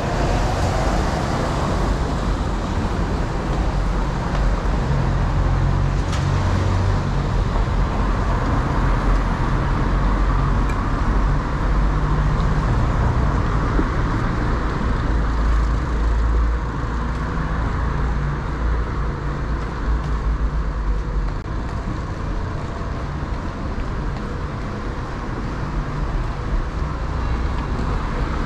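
Road traffic on a city street: motor vehicles running past with a steady low engine rumble, easing a little in the second half.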